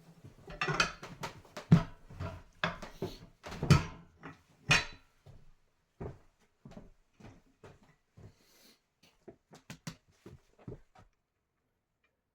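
Irregular knocks and clatter of a tire being worked down onto its rim on a manual tire changer. The knocks are loudest and most frequent in the first few seconds, thin out, and stop about eleven seconds in.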